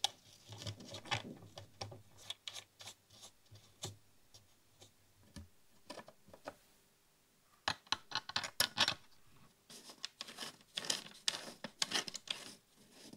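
Small metal hardware being handled and screwed into an MDF board: light clicks, scrapes and rattles of a threaded input jack, its nut and an indicator lamp holder, with two busier runs of clicking about eight and eleven seconds in.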